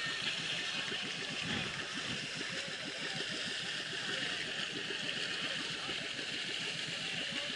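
Boat engine running steadily, with water rushing and gurgling along the hull.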